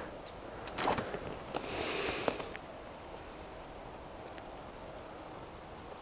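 Quiet outdoor night ambience at an old well, with a short click just under a second in, a brief soft rustle around two seconds in, and a faint high chirp about halfway.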